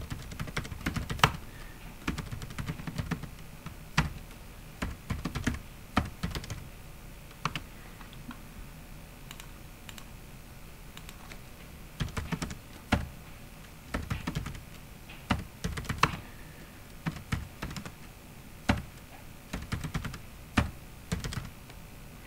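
Computer keyboard typing in short bursts of keystrokes with pauses between, including a lull of a few seconds in the middle.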